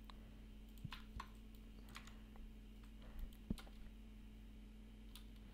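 Faint, scattered clicks of a computer keyboard and mouse being operated, about seven over a few seconds, over a low steady hum.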